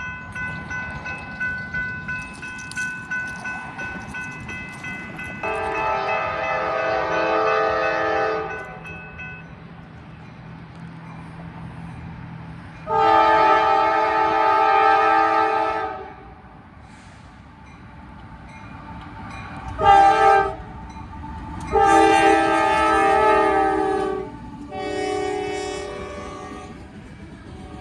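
Diesel locomotive air horn sounding for a grade crossing: two long blasts, a short one and another long one, followed by a softer long blast, over the steady rumble of the train.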